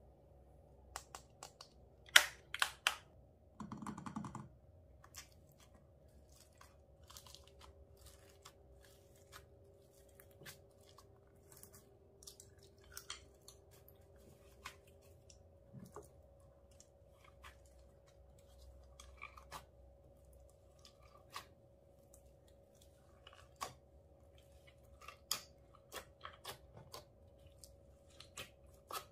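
Clear slime loaded with glitter, foam beads and makeup being pressed and kneaded by hand, giving scattered sticky clicks and crackles. Near the start a plastic makeup palette pressed into it gives a few sharper, louder clicks.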